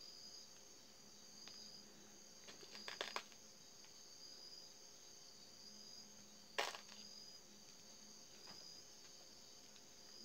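Near silence: faint room tone with a steady high-pitched whine, broken by a few light clicks about three seconds in and one more at about six and a half seconds.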